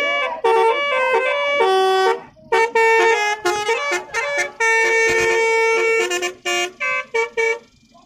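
Basuri telolet musical air horns playing a fast tune of short, stepping notes, with a brief gap about two seconds in, and cutting off near the end.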